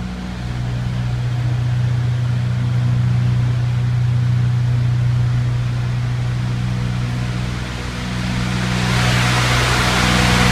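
Four-cylinder 30 kW diesel generator running steadily under load, a low hum. About nine seconds in, a rush of air grows louder on top of it, from a greenhouse heater's blower.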